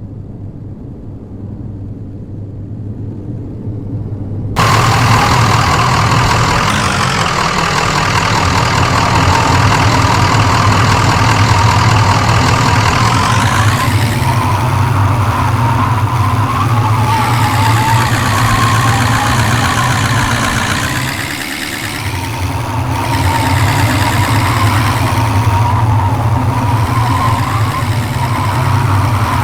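Vehicle engine under way, loud and steady. Its pitch rises and falls several times as it speeds up and changes gear, after a few seconds of low rumble at the start.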